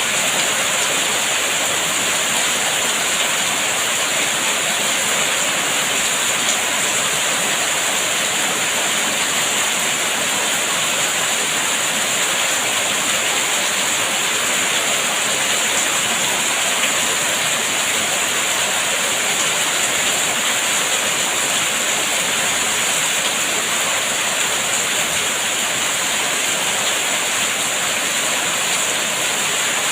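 Steady rain: an even, unbroken hiss of falling water that stays the same throughout.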